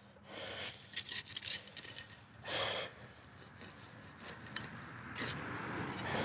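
Hand digging in root-matted soil: a few rough scraping strokes and small clicks as the tool works through dirt and roots.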